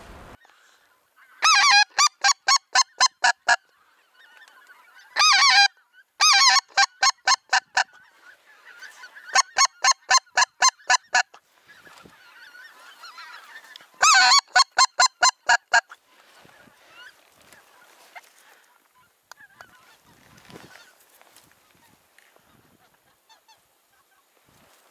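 Goose honking in quick, evenly spaced runs of loud calls: four runs of rapid honks and one long wavering call. The calls stop about sixteen seconds in.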